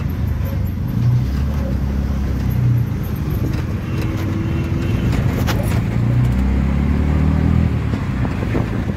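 Auto-rickshaw's small engine running steadily under way, a loud low drone heard from inside its open passenger cabin, mixed with road and traffic noise.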